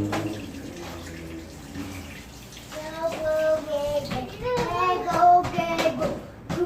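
A child's high voice in the background, its pitch sliding up and down, from about three seconds in. Before it, a steady low hum fades out about two seconds in.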